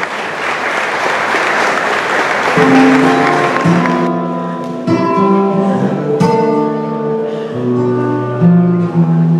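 Audience applause that dies away about four seconds in as an acoustic guitar starts playing, followed by solo acoustic guitar picking a melody of ringing single notes and chords.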